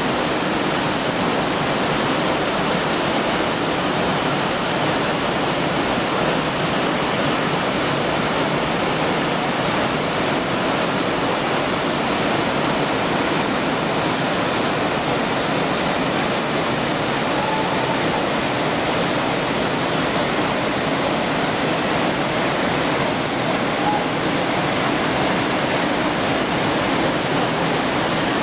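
Korbu waterfall: a steady, even rush of falling water.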